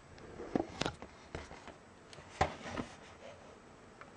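DVD box set packaging being handled and opened: a handful of light clicks, taps and rubs of cardboard and the plastic disc tray, the loudest about two and a half seconds in.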